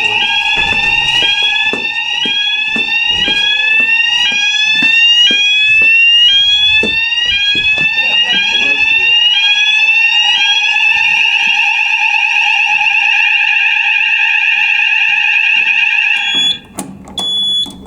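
Fire alarm sounders going off during a weekly fire alarm test: steady tones together with a rising sweep that repeats about once a second. The sweeping stops about two-thirds of the way through while the steady tones carry on, then the alarm cuts off suddenly near the end, followed by a few short beeps.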